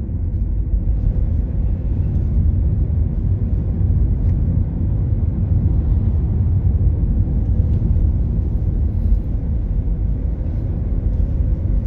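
Cabin noise of a car driving along at a steady speed: an even, low rumble of engine and tyres on the road.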